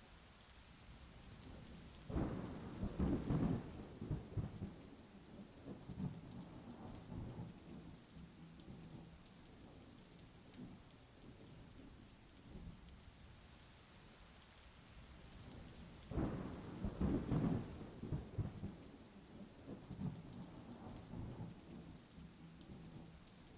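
Steady rain with two rolls of thunder, one about two seconds in and another about sixteen seconds in, each rumbling for several seconds before fading back into the rain.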